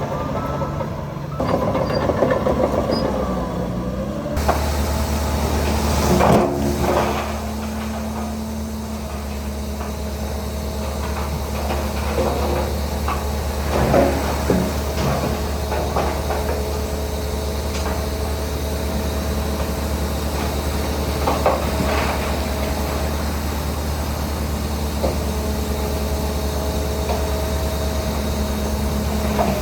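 Heavy diesel construction machinery running steadily, with occasional sharp metallic clanks and knocks, the loudest about six seconds in and again near 14 and 22 seconds.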